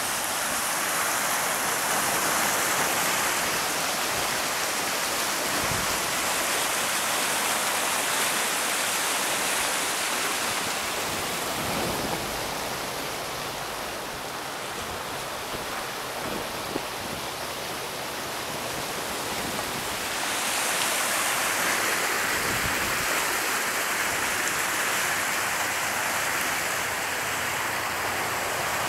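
Muddy floodwater rushing steadily through a creek swollen by a flash flood, a continuous watery rush that drops somewhat lower for several seconds in the middle.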